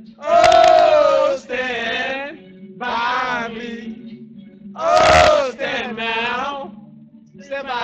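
Several men singing and chanting loudly without words, in short phrases of about a second each with brief gaps between them.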